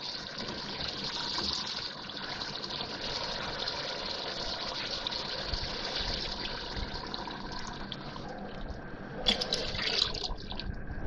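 Water poured in a steady gushing stream from a glass jug into a pan of fried beef and spices, about a litre and a quarter added so the meat can simmer until tender. A few sharp clicks come near the end.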